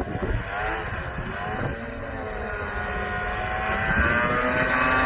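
Snowmobile engine revving up and down, then holding a steadier, higher pitch as it gets louder about four seconds in.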